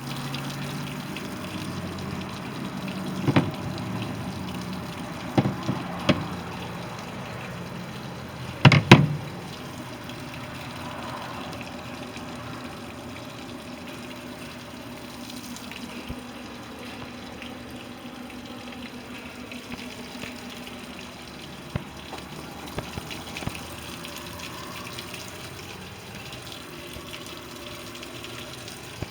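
Steady rush of running water, with a few sharp knocks in the first nine seconds.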